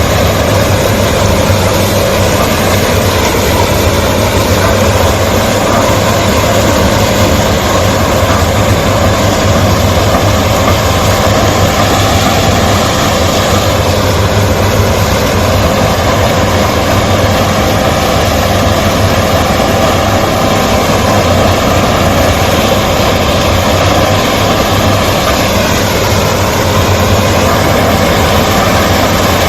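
Case sugarcane harvester's diesel engine running, loud and steady, with a heavy low hum.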